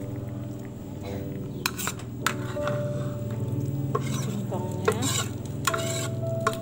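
A spoon scrapes grated cassava out of a plastic bowl into a pot of boiling brown-sugar syrup, with several sharp clicks of the utensil against the bowl. Under it runs the steady bubbling hiss of the syrup on the boil.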